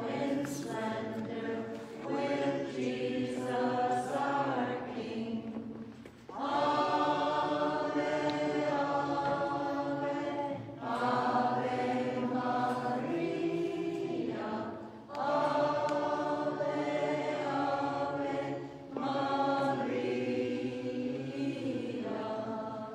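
Hymn sung in slow phrases of about four seconds, each note held, with short breaths between; the singing ends right at the close.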